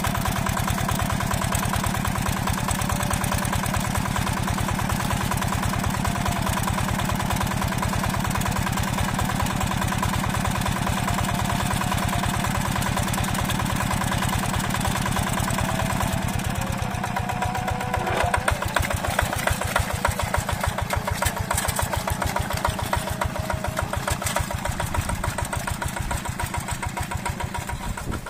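Yanmar TF65 single-cylinder diesel engine of a hand tractor running steadily under load in a flooded paddy. About sixteen seconds in the sound changes and the engine's individual firing beats come through more distinctly.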